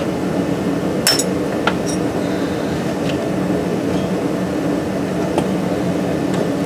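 Steady background hum, with a sharp metal clink about a second in and a few faint clicks after it, as the rusted rear wheel hub of a 2005 Chevy Equinox is worked back and forth by hand to break it free of its rusted seat.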